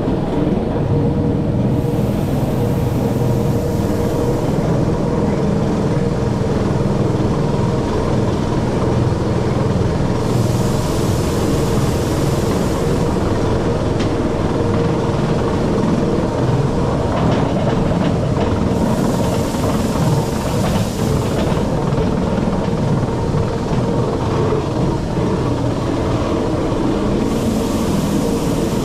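Rack-railway (cogwheel) train running downhill on rack track: a steady rumble of wheels and cog gear with a steady tone from the drive. A high hiss rises and fades about every eight seconds.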